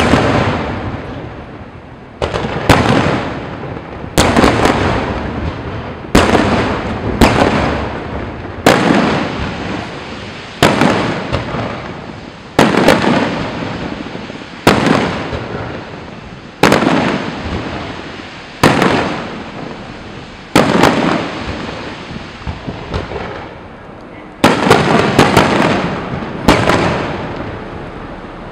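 Aerial firework shells bursting close overhead, one loud boom about every two seconds, each dying away over a second or two. Near the end the blasts come in a quicker cluster.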